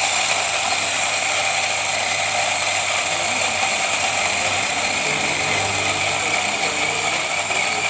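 Electric burr coffee grinder switched on and running steadily, grinding coffee beans with a high whine over a rough grinding noise.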